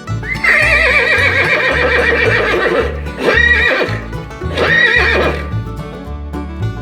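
A horse neighing: one long whinny with a quavering pitch that falls away, then two shorter whinnies, over background music with a steady bass line.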